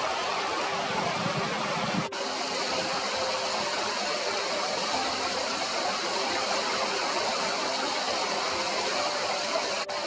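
Steady rush of flowing river water, with a faint steady hum underneath; the sound dips briefly about two seconds in and again near the end.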